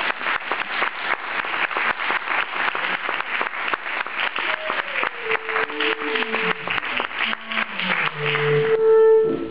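Audience applauding. From about halfway through, woodwinds play held notes and a falling line under the clapping, and it ends with one loud steady note as the clapping dies away.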